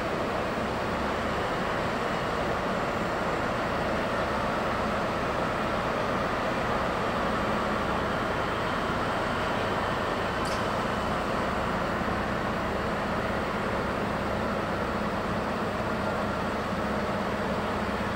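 Trains running in a railway station: a steady, even rumble and hiss with no sudden events, joined by a low steady hum from about halfway through.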